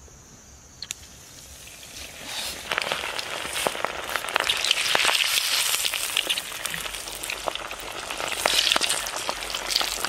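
Batter-coated fish deep-frying in hot oil in a wok: quiet at first, then from about two seconds in a loud, crackling sizzle with many sharp pops as the fish goes into the oil.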